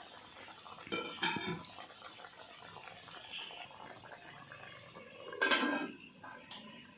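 Fish curry bubbling in a wok, with a couple of metal clinks about a second in, then an aluminium lid clanking down onto the wok about five and a half seconds in.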